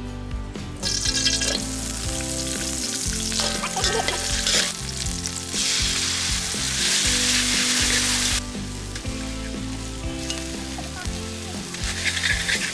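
Shallots, garlic, lemongrass and chili paste sizzling hot in oil in a wok, stirred with a metal spatula. The sizzle is loudest about halfway through, then eases off for the last few seconds.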